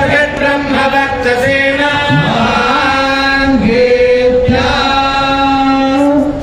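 A group of voices chanting Vedic hymns in unison, holding long notes with slow rises and falls in pitch. The chant stops just before the end.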